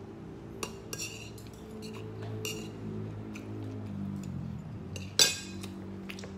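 Spoon and fork clinking against a plate while eating, a handful of light clinks with one sharper, ringing clink a little past five seconds in.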